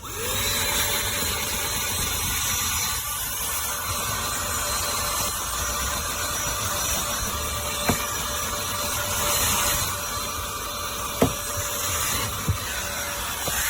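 Cordless handheld mini car vacuum switched on, spinning up quickly and then running steadily with a constant whine as it sucks grit off a car floor mat. A few sharp clicks sound in the second half.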